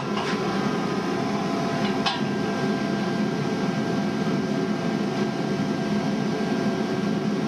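A steady mechanical hum with a few faint held tones underneath, with a short sharp tick about two seconds in.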